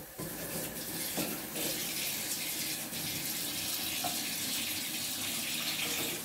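Kitchen tap running steadily into a sink, with a few faint clinks.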